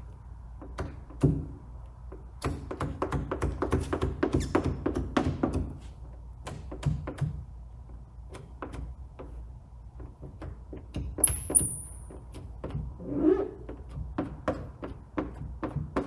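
A squeegee worked over wet paint protection film along a hood's front edge: many quick clicks and soft thunks, with a denser chattering stretch a few seconds in and a brief high chirp past the middle.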